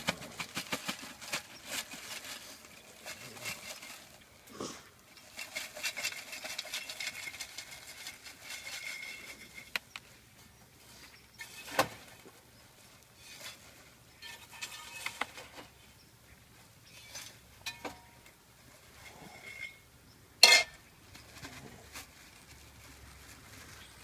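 Kettle corn being handled and scooped into a plastic bag: crinkling plastic and rustling popcorn with scattered light clicks, and one sharp knock about 20 seconds in.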